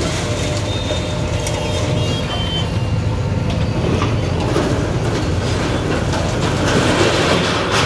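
Diesel engine of a JCB backhoe loader running steadily under load as its arm knocks down brick shop fronts, with scattered knocks and clatter of falling brick and debris.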